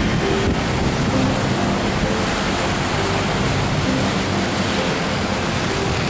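Rough sea surf churning and breaking in waves against a stone seawall, a steady dense rush, with wind buffeting the microphone.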